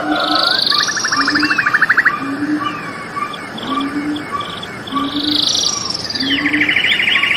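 Several birds calling and singing together, with chirps, buzzy notes and rapid rattling trills about a second in and again near the end. Under them a short low call repeats about once a second.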